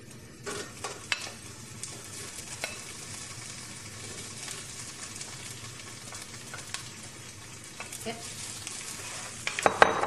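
Shrimp sizzling in hot olive oil in a frying pan, the hiss starting about half a second in as they go into the pan. Spoon clicks and scrapes run over it, with a louder clatter of stirring near the end.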